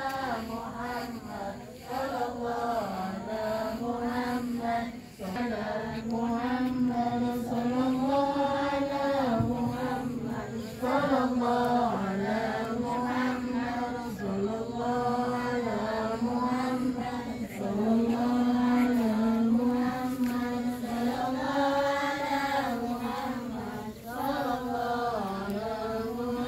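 Islamic devotional chanting: a voice line held and slowly wavering in long melodic phrases, with short pauses for breath every few seconds.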